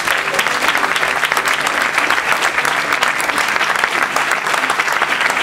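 Audience applauding: dense, steady clapping of many hands at the end of a sing-along song.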